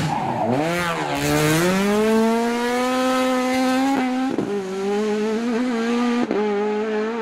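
Racing car engine revving: the pitch dips, then climbs over the first two seconds and holds high and steady, with short sharp breaks about four and six seconds in.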